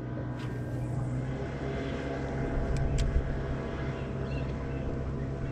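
Boat motor running with a steady hum, and two sharp clicks close together about three seconds in.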